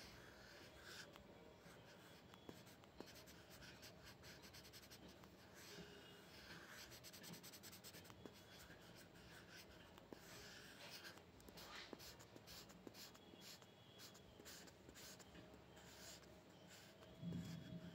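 Faint scratching of a pencil tip on textured paper in short strokes, with a quick run of back-and-forth strokes about halfway through as an area is coloured in. A soft low thump comes near the end.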